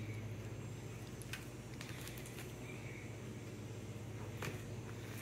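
Quiet room tone with a low steady hum and a few faint clicks from a finger on a laptop touchpad.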